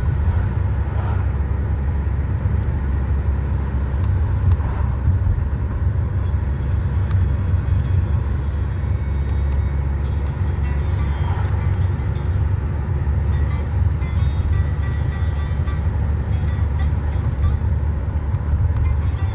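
Steady low rumble of a vehicle in motion, with faint music in the background.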